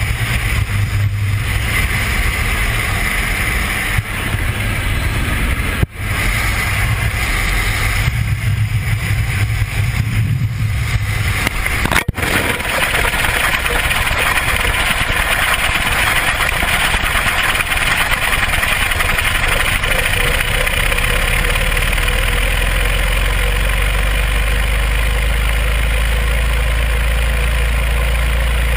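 Wind and a light aircraft's engine droning on a camera mounted outside the plane. About twelve seconds in there is a sharp click, after which the falling camera gives a steady rush of wind, with a low rumble growing louder toward the end.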